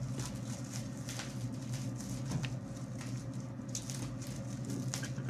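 Packaging and its contents being handled by hand: scattered light rustles and clicks, over a steady low background hum.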